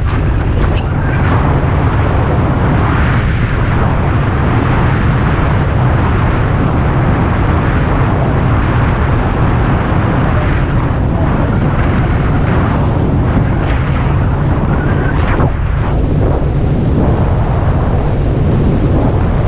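Motorboat underway: wind rushing over the microphone, over a steady loud low rumble of the boat and water.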